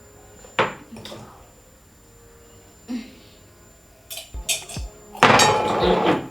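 Dishes and a glass knocking and clinking on a table: a few single knocks at first, several in quick succession about four seconds in, then a louder, longer burst of noise near the end.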